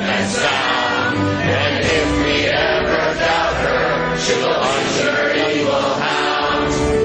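A group of voices singing a chant-like song in held, drawn-out notes. The words run 'She keeps us safe and sound… she'll unleash her evil hounds.'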